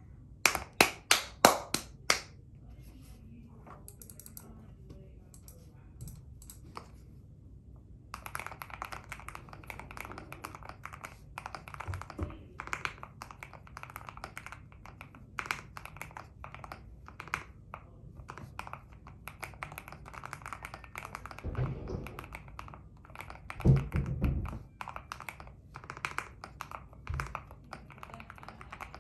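Mechanical keyboard being typed on, its keys giving a marble-like clack, called 'thock'. It opens with a quick run of loud strikes, goes quiet for a few seconds, then settles into fast continuous typing from about 8 s in, with a few heavier thuds near 22 and 24 s.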